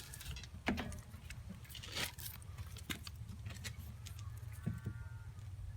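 Scattered light clicks and knocks of hands handling small parts and tools, over a steady low rumble.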